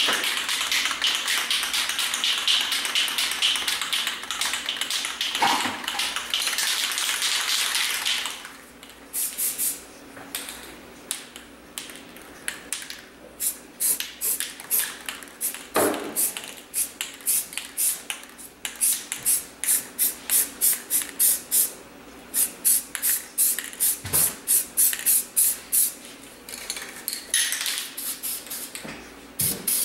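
Aerosol spray paint can hissing in one continuous spray for about eight seconds, then sprayed in many short hisses for the rest of the time, with a few knocks in between.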